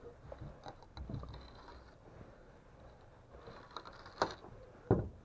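Old wooden boards and debris knocking and creaking as someone clambers past a plank door through rubble. There is a sharp knock about four seconds in and a heavier thump just before the end.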